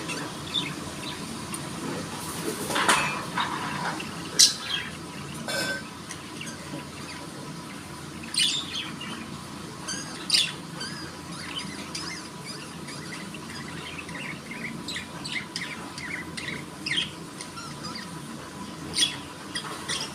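Budgerigar chirping and chattering continually in quick short notes, broken by a few louder, sharper calls.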